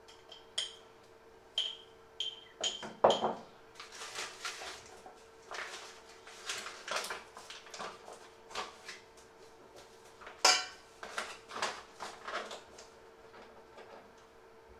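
A spoon taps and clinks against a small glass jar and a stainless steel mixing bowl: a run of light ringing taps at first, then two sharper knocks. Between them comes a stretch of crinkling and rustling as flour is shaken from a paper bag into the bowl.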